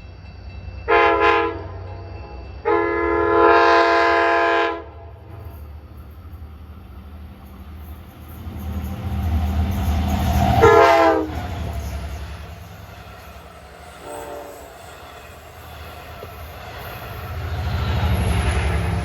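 Nathan K5LA five-chime air horn on an LIRR DM30AC locomotive blowing four blasts: a short blast, a longer one of about two seconds, a third that drops in pitch as the locomotive passes, and a brief faint toot. The train's rumble swells as it goes by and again near the end.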